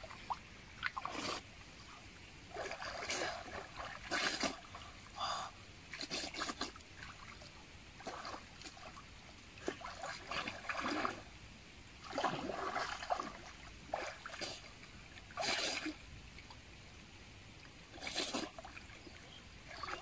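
Water sloshing and splashing in irregular short bursts as a person wades chest-deep through a river, pushing his arms through the water.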